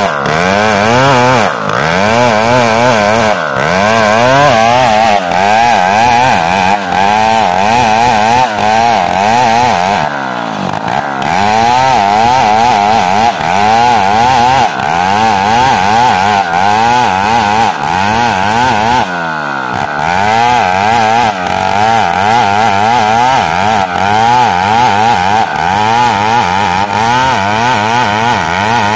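Old two-stroke chainsaw ripping lengthwise through a Borneo ironwood (ulin) beam. The engine pitch keeps sagging and recovering, roughly once a second, as the chain loads in the cut, and it eases briefly about ten and nineteen seconds in.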